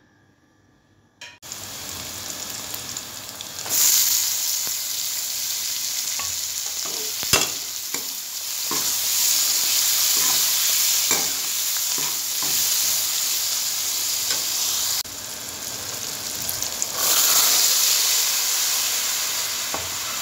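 Chopped onions, tomatoes and peas frying in hot oil in a steel pot: a steady sizzle that starts after a moment and jumps louder about four seconds in and again near the end. A steel spoon clinks and scrapes against the pot as it stirs.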